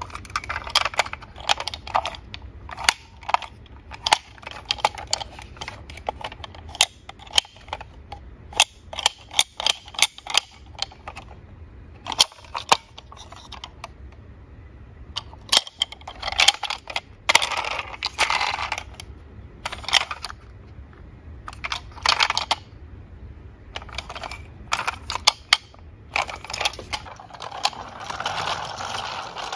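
Plastic clicks, snaps and rattles from a toy garbage truck being handled, its rear hopper and body parts opened and clicked shut, in irregular bursts. Near the end a continuous rattle as the truck's plastic wheels roll on a wooden surface.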